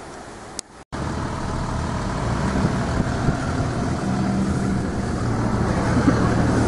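A click and a brief cut-out a little under a second in, then a car's engine and road noise as it drives, slowly getting louder.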